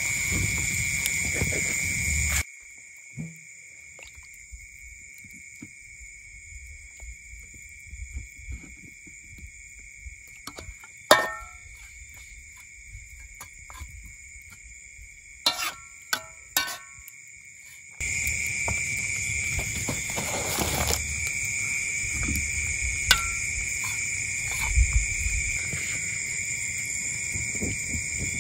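Steady high-pitched chorus of night insects, with a few sharp metallic clinks of a metal spatula against a steel wok about eleven seconds in and again around sixteen seconds. A louder low rumble lies underneath for the first couple of seconds and again over the last ten.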